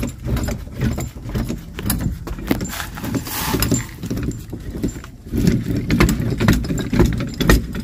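Metal clinking and clicking as a threaded-rod cutlass bearing press is taken apart and removed from a boat's propeller shaft strut: plates, washers and nuts knocking together, with a brief hiss about three seconds in.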